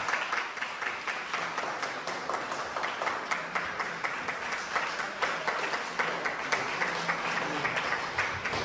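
Audience applauding, many people clapping steadily at once.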